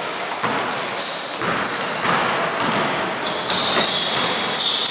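Basketball being dribbled on a hardwood gym floor, with many short, high squeaks of basketball shoes on the court as players run and cut.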